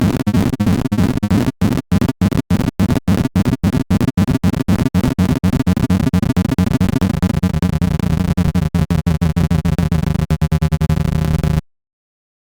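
Sorting-algorithm sonification: a rapid stream of short synthesized pulses whose pitch follows the values being compared and moved, over a square-wave sub-oscillator. The pulses come faster and closer together in the later part and cut off suddenly near the end, as the sort finishes.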